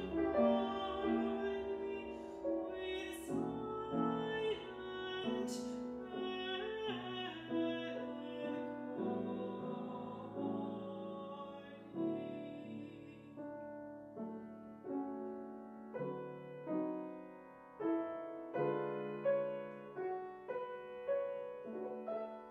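A woman singing a classical art song with grand piano accompaniment. About nine seconds in the voice ends and the piano carries on alone, its notes struck and left to ring.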